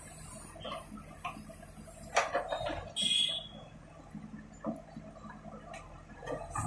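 Backhoe loader's engine running steadily while its digging bucket scrapes and knocks through broken concrete and earth, with sharp clanks about two seconds in and again near the end, and a brief high metallic ring about three seconds in.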